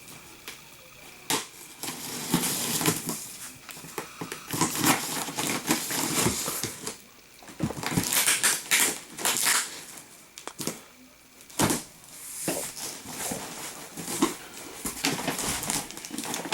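Cardboard shipping box being opened and packing paper crumpled and pulled out: irregular crinkling, rustling and scraping, with sharp clicks and snaps throughout.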